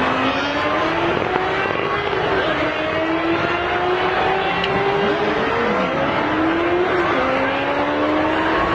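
Motor vehicle engines running, their pitch rising slowly in repeated climbs over a steady rush of noise.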